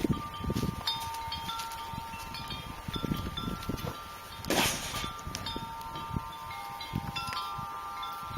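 Wind chimes ringing: several metal tones at different pitches sounding together and holding for seconds, with light knocks and handling noise underneath and a short burst of noise a little past halfway.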